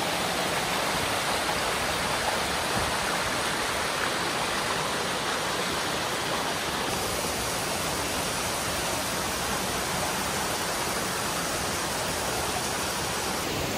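Waterfall and stream rushing over rocks: a steady, even rush of falling water.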